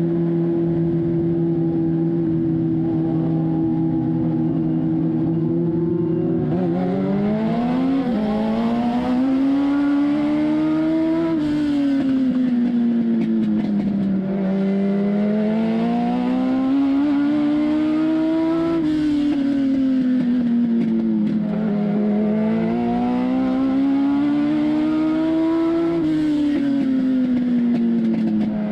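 Legend car's Yamaha four-cylinder motorcycle engine heard from inside the cockpit, holding a steady pitch for the first six seconds or so, then repeatedly revving up and easing off about every seven seconds as it accelerates down the straights and lifts for the turns of the oval.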